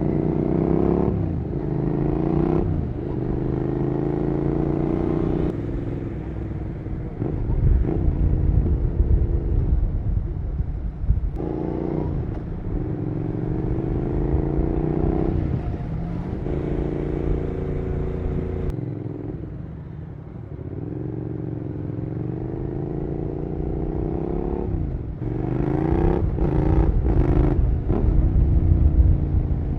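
Suzuki SV650's 90-degree V-twin through an aftermarket Cobra slip-on exhaust, accelerating again and again: the pitch climbs, then drops at each upshift, with a quick run of shifts near the end. A low rumble runs underneath.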